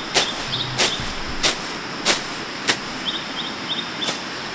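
Repeated sharp blows of a hand tool on wood or bamboo, roughly one every two-thirds of a second, in a steady working rhythm.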